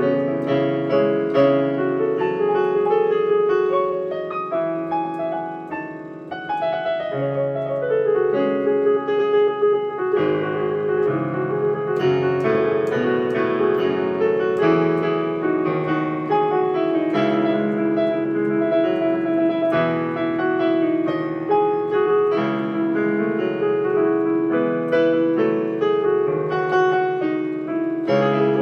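Solo digital piano played with both hands: a continuous run of chords and melody notes, growing softer for a moment about four to six seconds in, then full again.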